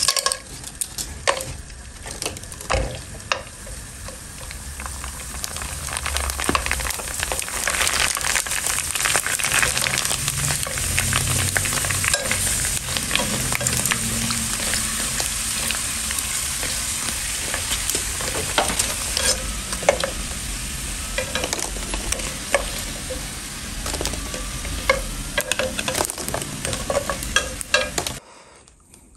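Hot oil sizzling as flat puri dough discs deep-fry and puff up into round shells in a pan, with a metal slotted spoon clicking against the pan as they are turned. The sizzle builds over the first few seconds and cuts off suddenly near the end.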